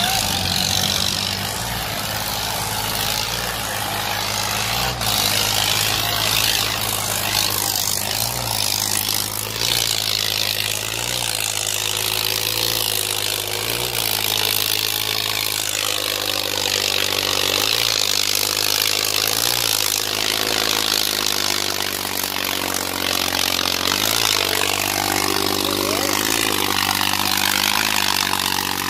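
Eicher 557 tractor's three-cylinder diesel engine running hard under heavy load, stuck in soft soil dragging a disc harrow with its front end lifting. The engine note dips and recovers every second or two.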